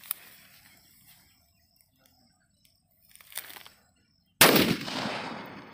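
A 6-inch Valangaiman country firecracker (nattu vedi) going off about four seconds in: one sudden, very loud bang that rings out and fades over a second or so.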